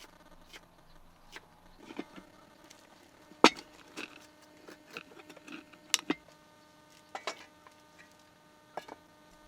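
A series of irregular sharp knocks and clicks, the loudest about a third of the way in.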